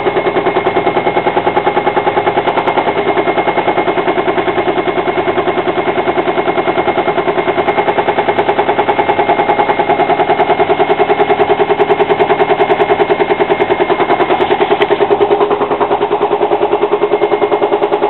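Hotpoint front-loading washing machine spinning its drum, with a rapid, even knocking: a knock that the machine has developed on spins above 500 rpm.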